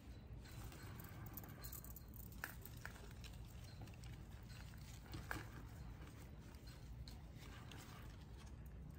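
Hands pressing potting soil and brushing through leaves in a houseplant planter: faint rustling with a few small clicks, the sharpest about five seconds in, over a low steady hum.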